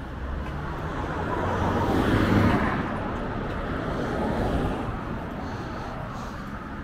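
Road traffic with a vehicle passing close by, its tyre and engine noise swelling to a peak about two seconds in, then a smaller swell a couple of seconds later.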